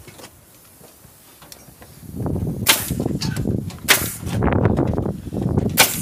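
Nail gun firing three nails into timber fence boards, three sharp cracks starting about halfway in, the last two nearly two seconds apart. Wind rumbles on the microphone under them.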